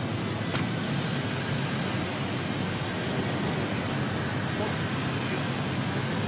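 Steady jet engine noise from Air Force One, a four-engine Boeing VC-25A (747), rolling along the runway.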